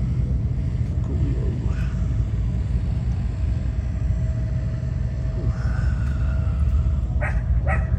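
Steady low outdoor rumble with faint voices in the distance.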